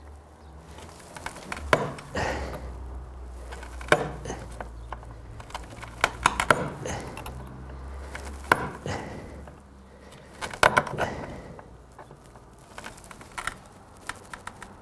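Small sharp taps of a hand-held percussor knapping a flint piece against a wooden bench, striking flakes off its edge. The taps come irregularly, some singly and some in quick clusters.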